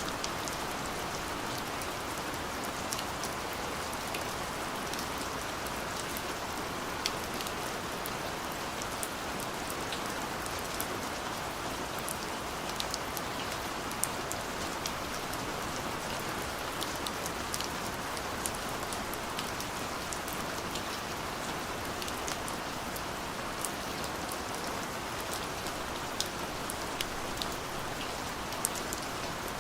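Steady rain falling, a constant patter with scattered individual drops ticking on a surface.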